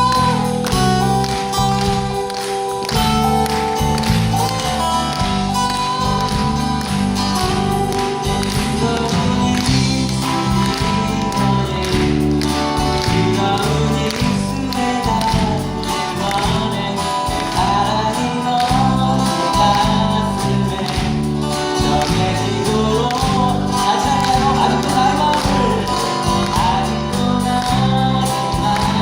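Live band music with a steady beat, acoustic guitar and singing.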